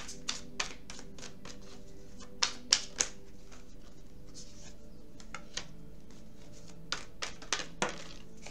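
Tarot cards being handled and laid down on a table: scattered sharp taps and flicks of the cards. The loudest cluster comes about two and a half to three seconds in, and a few more come near the end.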